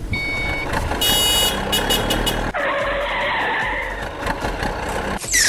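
Cartoon vehicle sound effects: a short beep, then a steady car-like rush of noise, ending in a loud falling whoosh.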